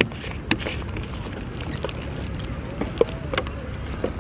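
Beach ambience: a steady rumble of surf and wind, with scattered short knocks and clicks throughout.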